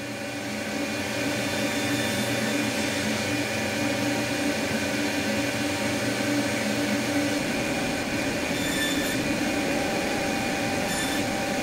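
Table saw running, its blade cutting a shallow recess into a wooden piece in repeated passes; a steady machine whine with a rush of cutting noise, whose sound changes about seven seconds in.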